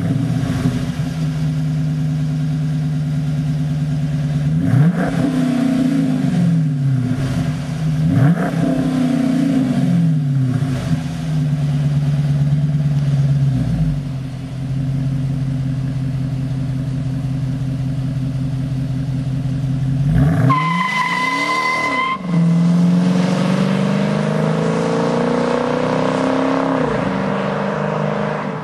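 Dodge Challenger R/T 5.7 L Hemi V8 idling through an aftermarket Zoomers exhaust, blipped with quick throttle revs about five, eight and eleven seconds in. About twenty seconds in it is revved hard for a moment, then the engine note climbs slowly in a longer pull near the end.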